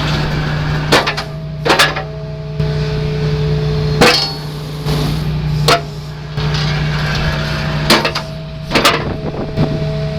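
Hydraulic excavator engine running while a Furukawa Rock Drill VS22 magnetic secondary crusher attachment is worked: sharp metal clanks every one to two seconds as the jaws close and open, with a steady whine held between some strokes.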